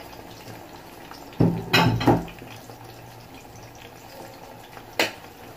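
Dishes being handled on a kitchen counter: a clattering knock about a second and a half in, then a single sharp click near the end.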